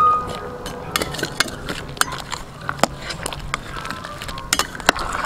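Metal ladle stirring chunks of potato, carrot and chicken feet in thick curry in a stainless steel pot, with irregular clinks and knocks of metal on the pot's side.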